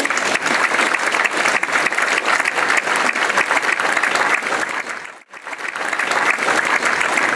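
Audience applauding, a dense, even clatter of clapping that breaks off sharply for a moment about five seconds in and then resumes.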